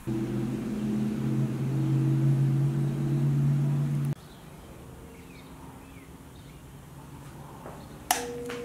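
A steady electric machine hum with several even tones, which cuts off abruptly about four seconds in, followed by a quieter stretch. Near the end there is a sharp click as a bench grinder with a wire wheel is switched on, and its motor starts to whine.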